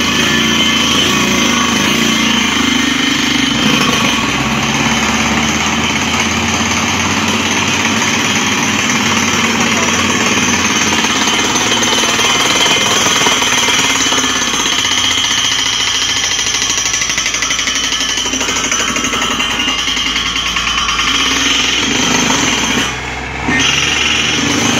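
Truck-mounted DTH water well drilling rig running under test: steady, loud machinery noise from its engine and ELGi air compressor, with a down-the-hole air hammer drilling and blowing rock dust out of the hole in the first half. The noise drops briefly near the end.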